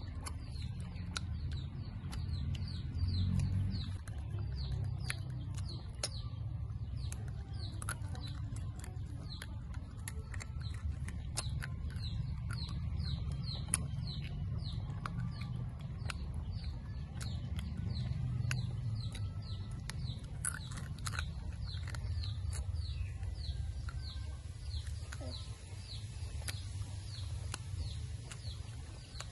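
A bird chirping over and over, a short falling note about twice a second, over a low steady rumble. Now and then a crisp crunch of dried banana chips being bitten and chewed, the sharpest about halfway through.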